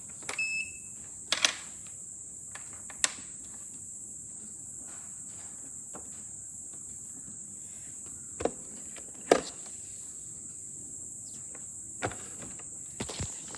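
A short electronic beep about half a second in, then scattered clicks and knocks of a plastic robot vacuum being handled, with the loudest knock about nine seconds in. A steady high-pitched whine runs underneath.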